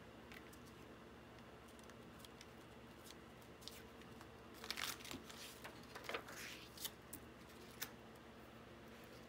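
Faint handling of paper: a printed sheet is peeled off a paint-covered board and laid down, giving a short run of crinkly rustles and light taps about halfway through, then a single small tap.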